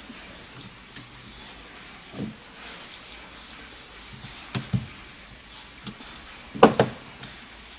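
A few scattered light clicks and knocks of small phone parts being handled and fitted together, the loudest a quick double knock near the end.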